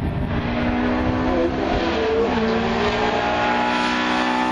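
Race car engine at full throttle climbing a hill, its pitch rising, dropping sharply on an upshift about two seconds in, then rising again.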